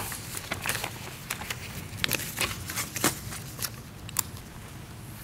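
Sheets of paper being shuffled and handled: an irregular scatter of short rustles and crackles.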